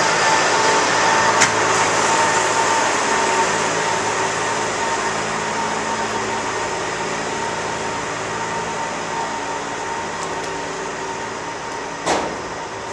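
Steady mechanical hum with a constant whine running under it, slowly fading, broken by a sharp click about a second and a half in and a louder knock near the end.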